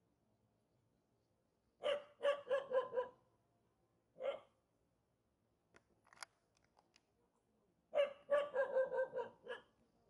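A dog barking in short runs: about five quick barks around two seconds in, a single bark, then another run of about six barks near the end.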